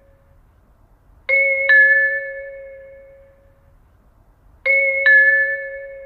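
Eiraku-type station announcement system's two-tone train-approach chime: a higher bell-like note, then a lower one about half a second later, both ringing and fading away. The pair sounds twice, about three and a half seconds apart, and the tail of the previous pair dies away at the start.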